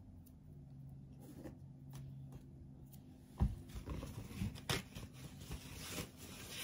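A few light knocks on a wooden cutting board as a peeled mango and kitchen tools are set down, then a soft paper rustle near the end as a paper towel is taken.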